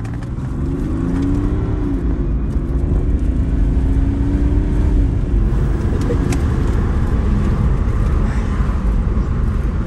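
A BMW 530d's 3.0-litre straight-six turbodiesel pulling the car away, heard from inside the cabin with the sunroof open. The engine note rises, dips about two seconds in, then rises again until about halfway, under a heavy steady road and engine rumble.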